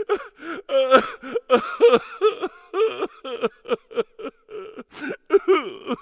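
A comic crying voice, sobbing and wailing in short broken sobs with a wavering, bending pitch.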